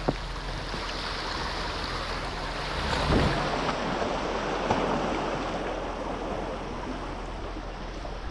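Sea waves washing against a rocky shore, one wave surging louder about three seconds in, with wind noise on the microphone.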